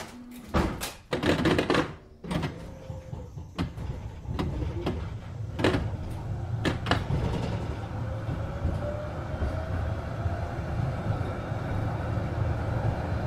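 Düwag GT6Z tram heard on board. A series of knocks and clunks in the first few seconds is typical of its doors closing. The tram then pulls away, its motor and running noise building steadily, with a faint rising whine about eight seconds in.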